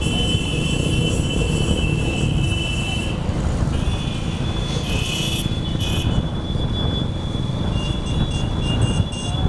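A moving vehicle's steady low road-and-wind rumble. High-pitched steady tones come and go over it; they are strongest in the first three seconds and break into short pieces near the end.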